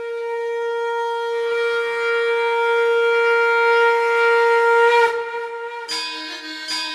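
A reedy wind instrument holds one long, steady note that swells in loudness for about five seconds. About six seconds in, it breaks into a melody of short notes that step between pitches.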